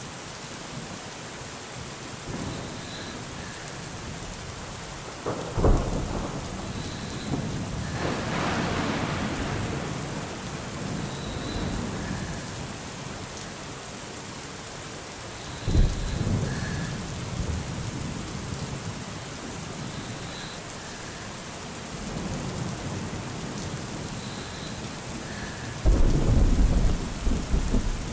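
Thunderstorm: steady rain with thunder. Sharp claps come about five seconds in and again at about sixteen seconds, each trailing off in a rumble, and a heavy rumble builds in the last couple of seconds.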